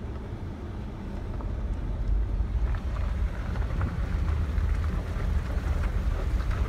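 Low rumble of a Jeep with wind buffeting the microphone, growing louder about two seconds in.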